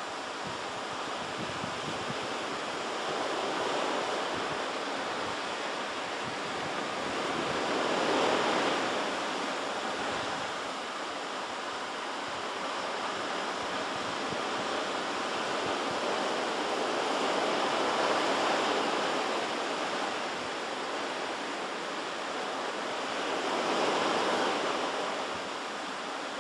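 Ocean surf: a steady wash of breaking waves that swells and fades every several seconds.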